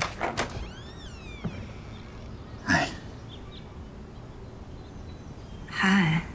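A few knocks on a wooden front door and a bird chirping outside, then two short, louder sounds as the door is opened, the second with a squeaky pitch.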